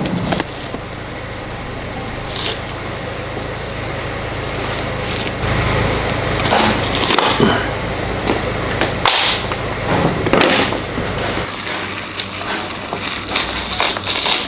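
A leather-soled boot being handled and flexed during repair: irregular creaking, cracking and knocking of the sole layers. This is the kind of leather-on-leather creak being hunted as the boot's squeak.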